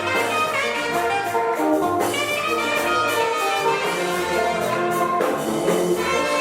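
Praise-and-worship music played by a band, several instruments sounding notes together in a steady melody.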